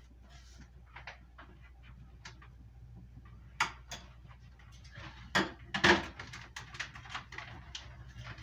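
Containers and packages clicking and knocking as they are moved around inside an open refrigerator, sparse at first, then busier with a few louder knocks in the second half.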